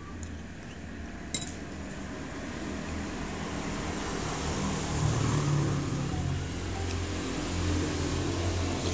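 A metal spoon clinks once sharply against a plate about a second in, over a steady low hum that grows louder from about halfway.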